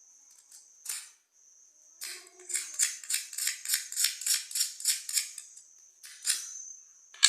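Cuttlefish bone being scraped down into powder: a run of quick, even rasping strokes, about four a second, after a single stroke about a second in, with one more stroke near the end.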